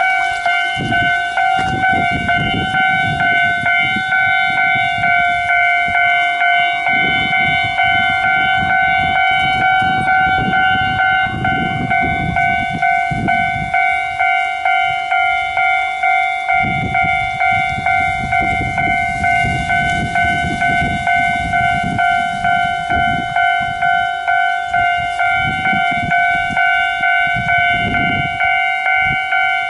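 Japanese railway level crossing's electronic warning bell ringing steadily at about two strikes a second, over the low rumble of Kintetsu trains passing over the crossing.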